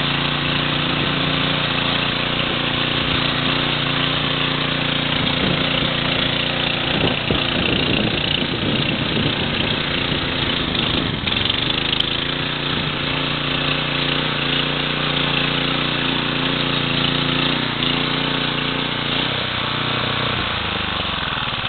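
Viking HB 585 garden tiller's Kohler four-stroke engine running under load as its tines churn soil. Around the middle the engine note wavers and breaks up, and near the end it slows down.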